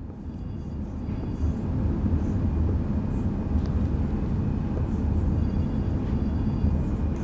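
A steady low rumble that builds up over the first second or so, with faint squeaks of a marker writing on a whiteboard.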